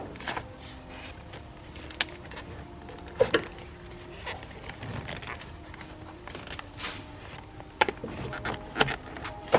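Scattered light clicks and knocks of a metal strut-brace bracket being worked by hand under a car's engine wiring harness, a few sharp knocks standing out among small rattles.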